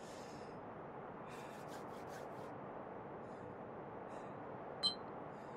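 A quiet, steady background hiss, with a few soft rustles of a coat about one and a half to two and a half seconds in and a single short, ringing clink near the end.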